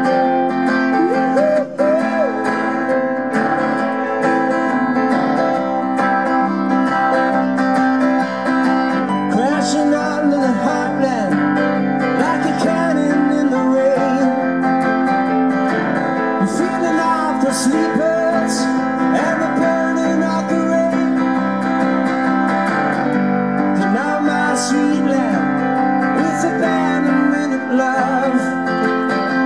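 Acoustic guitar strummed in a steady rhythm together with a Technics P30 stage piano, with a man's voice singing in stretches.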